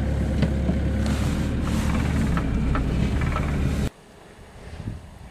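A vehicle engine running steadily with a low, even hum, cutting off suddenly about four seconds in; faint wind noise follows.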